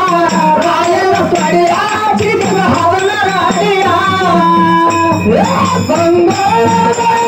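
A man sings a Kannada dollina pada (dollu folk song) through a microphone and PA, with steady percussion behind him. He holds long, wavering notes and slides up to a high held note a little after the middle.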